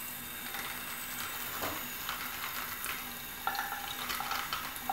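A wet, shampooed gel eyeliner brush scrubbed against the ridged silicone of a Sigma Spa Express brush cleaning mat in a sink: a steady crackly, hissing swish of lather and bristles, a little stronger in the last second or so.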